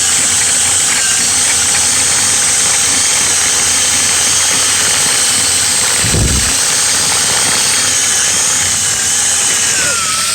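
Power-driven dryer vent cleaning equipment running steadily in a lint-clogged duct: a loud, even mechanical noise with a faint whine, and one low thump about six seconds in.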